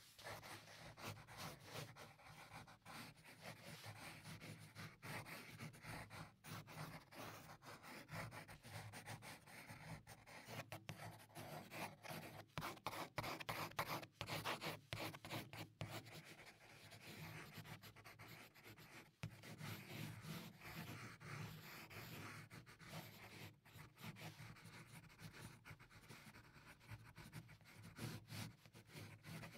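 Pencil graphite scratching on paper in quick shading strokes, faint, and a little louder around the middle.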